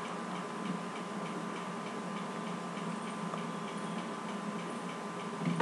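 Faint, evenly spaced ticking over a steady room hum, with a brief low sound near the end.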